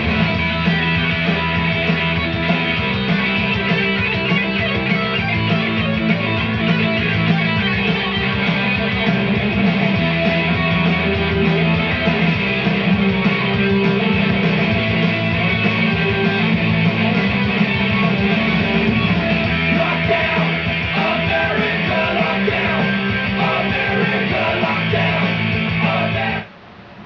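Loud, guitar-driven rock music, likely the show's punk opening theme. It drops off abruptly near the end.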